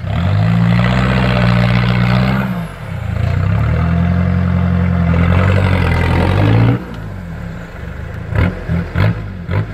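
Off-road 4x4's engine pulling hard at steady revs in two long pushes, the second after a brief let-off, as it crawls forward on big mud tyres. About seven seconds in it drops back to a lower, quieter run, and a few sharp knocks follow near the end.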